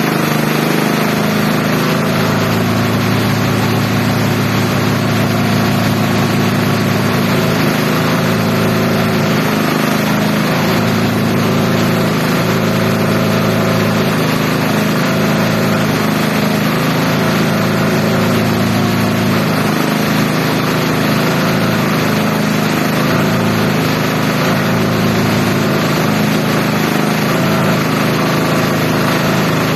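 Multi-purpose chopper-shredder-grinder machine running steadily, a constant engine-like drone that holds the same pitch throughout.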